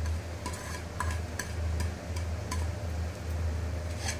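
Chopped onion being stirred into thick adai batter of ground rice and dal, with a few light clicks scattered through. A steady low hum runs underneath.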